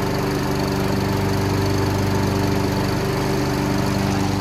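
Honda HRX217HYA walk-behind mower's single-cylinder engine running steadily at its fast throttle setting, with the blade engaged and the blade-control bar held down by a Velcro strap.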